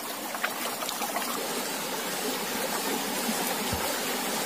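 Shallow river running steadily over rocks, a continuous rush of flowing water.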